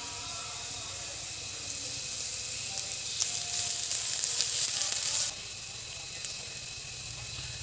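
Sliced onions sizzling in hot oil in a nonstick frying pan. About halfway through, the sizzle gets louder for a couple of seconds while they are stirred with a silicone spatula, then it drops suddenly back to a quieter, steady sizzle.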